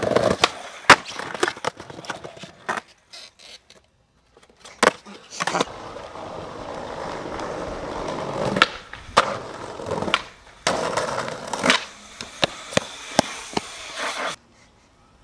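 Skateboard wheels rolling over concrete and paving, broken by sharp clacks and knocks of the board. The sound cuts off and comes back abruptly several times.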